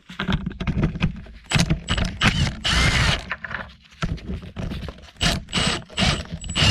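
Milwaukee cordless 1/4-inch impact driver firing in many short bursts as it runs bolts off an engine, with metal clinks and scrapes between the bursts.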